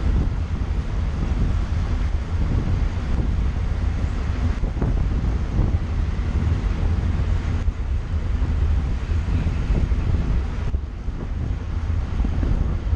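Steady low rumble of wind buffeting the microphone of a camera mounted on a road bicycle riding at about 38 km/h.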